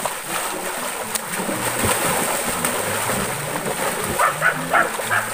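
Water splashing hard as a person flops belly-first into a shallow pool and thrashes about; the splashing eases after about four seconds, with a few short high calls near the end.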